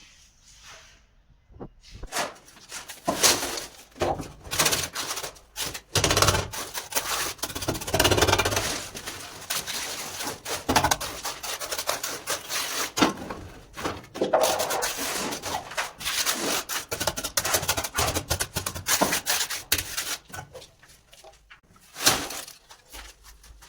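Hand concrete and masonry work: a dense, irregular run of scraping and knocks of tools on wet concrete and bars, dying away near the end.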